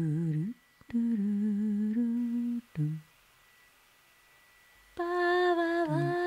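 Wordless humming by a human voice: low held notes with a slight waver, broken by short gaps. After a near-silent pause of about two seconds, a higher held note begins near the end.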